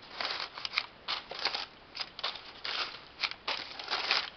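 Crumpled packing paper rustling and crackling as a hand pulls it out of a cardboard box, in short irregular crackles.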